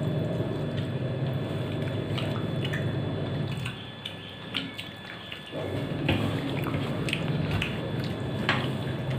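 Eating by hand from a steel plate, with short clicks and smacks of chewing and of fingers mixing rice, over a steady low rushing noise that drops away for about two seconds midway and then returns.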